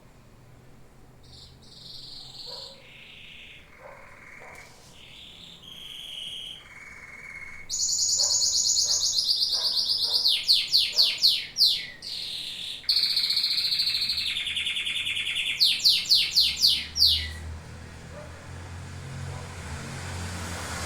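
Domestic canary singing: soft, varied notes at first, then loud rapid trills about eight seconds in and again about thirteen seconds in, each followed by a run of quick downward-sliding notes. The song stops about seventeen seconds in, leaving a low rumble near the end.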